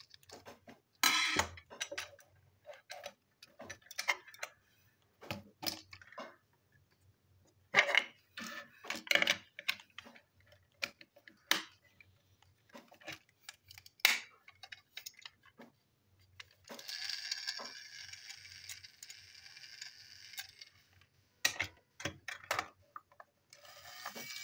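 Plastic toy train parts and a screwdriver clicking, tapping and knocking as they are handled, unscrewed and fitted together. About two thirds of the way through, a steady whirring hiss runs for about four seconds, and it starts again near the end.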